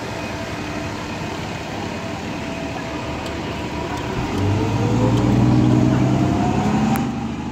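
Fire truck's diesel engine running; about four seconds in it gets louder, with a whine that rises steadily in pitch.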